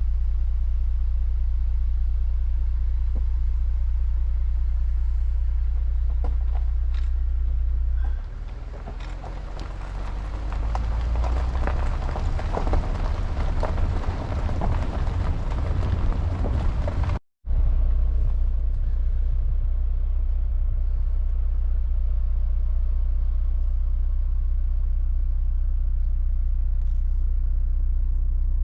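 Car cabin noise while driving: a steady low road and engine rumble. About a third of the way in, a stretch of louder hissing, crackling noise rises over it, then cuts off abruptly in a brief dropout, and the steady rumble returns.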